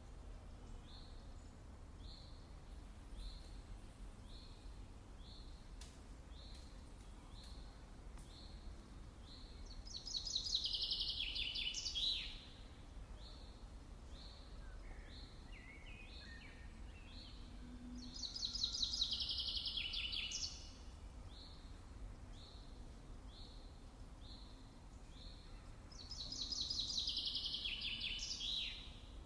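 Wild songbirds: one bird repeats a short high call about once a second throughout, while another sings a loud song phrase of about two seconds three times, roughly eight seconds apart, over a steady low background noise.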